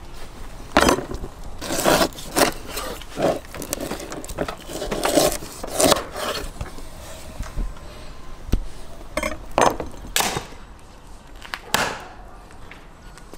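A rack of lamb being cut up on wood: about ten irregular, sharp chops and knocks of a knife and cleaver hacking through the meat and ribs onto a wooden cutting board and chopping stump, with some blade scraping on the wood.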